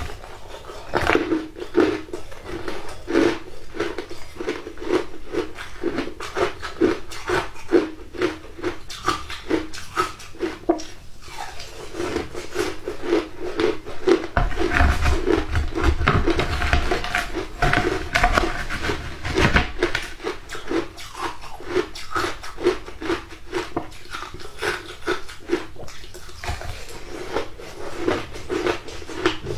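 Shaved ice being chewed: a steady run of crisp crunches, about three a second, heavier and deeper in the middle stretch.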